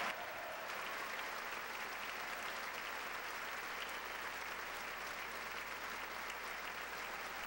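Steady applause from a large crowd of legislators giving a standing ovation.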